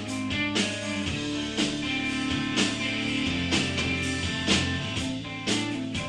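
Rock band playing live: guitars over bass and a drum kit, with the drum hits landing about twice a second.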